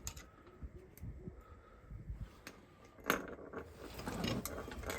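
Light metallic clicks and clinks of hand tools and brake parts being handled, with two short rattling clusters about three and four seconds in.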